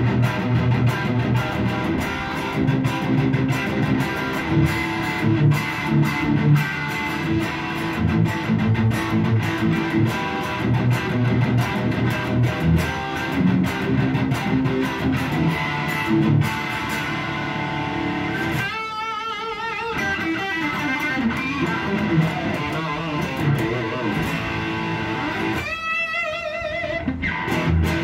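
A 1991 Gibson Les Paul electric guitar played through an amplifier with a fierce tone: a run of riffs and lead phrases, with two long held notes bent and shaken in wide vibrato, about 19 and 26 seconds in.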